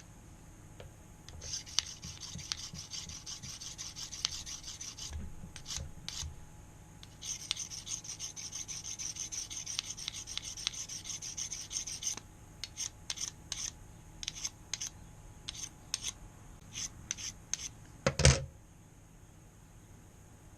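A knife blade scraping against a sharpener in two runs of quick back-and-forth strokes, then slower single strokes. One loud knock comes near the end.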